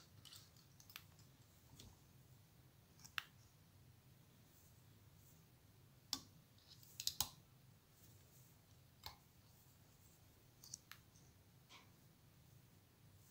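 Faint, scattered clicks and ticks from a wire whip-finish tool being worked around the tying thread at the head of a fly clamped in a tying vise, with a short cluster of clicks about seven seconds in.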